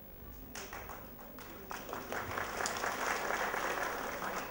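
Audience applause: scattered claps start about half a second in and swell into a full round of clapping.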